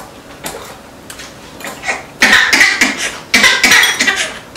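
Light clinks of chopsticks and dishes, then about two seconds in an infant starts crying in a run of short, loud bursts.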